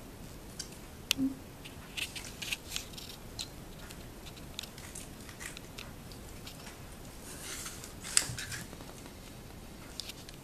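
Scattered small clicks, taps and brief rustles of hands handling a broken Kinder Surprise chocolate egg shell, with the sharpest click about eight seconds in.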